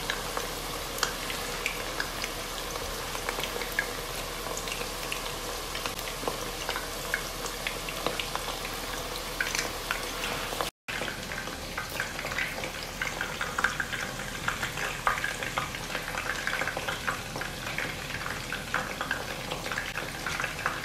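Batter-coated chicken pieces deep-frying in oil in a wok on a low flame: a steady sizzle dotted with many small crackles and pops. The sound drops out for a split second a little over halfway through.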